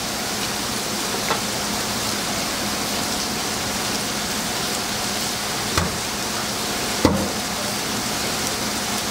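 Steady rush of running, splashing water, with two sharp knocks, one near six seconds in and one about a second later.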